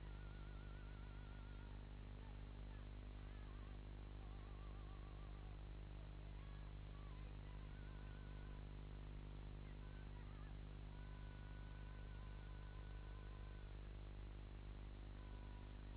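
Steady low hum and hiss, with faint warbling high tones that come and go.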